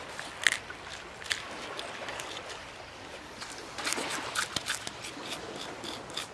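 A knife scraping the scales off a small grouper in short, irregular rasping strokes, over a steady trickle of water.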